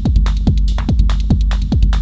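Techno pattern played on an Elektron Model:Cycles groovebox. A kick drum whose pitch drops on each hit sounds about twice a second, over fast hi-hat ticks and a steady bass drone.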